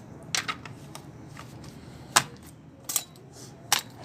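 Metal hand tools being handled and set down, giving a few sharp clinks and knocks: a quick pair near the start, then single ones about two, three and four seconds in.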